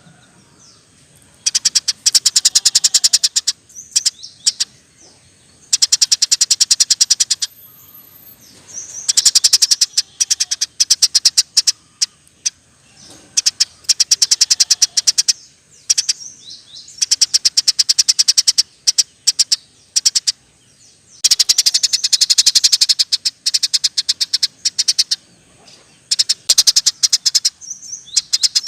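Eurasian tree sparrow singing in fast rolling trills: bouts of rapid high chirps, each lasting one to two seconds, with short pauses between.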